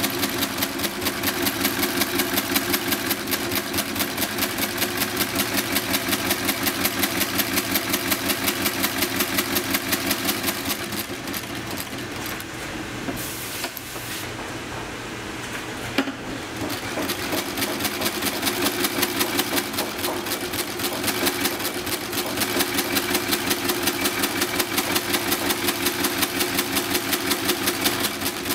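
Industrial sewing machine running at speed, stitching with a fast, even rattle. It slows and quietens for a few seconds around the middle, with one sharp click as it picks up again.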